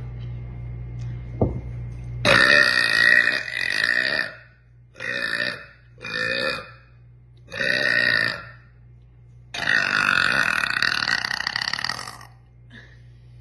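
A girl burping five times in a row: a long burp of about two seconds, three shorter ones, then another long burp of over two seconds.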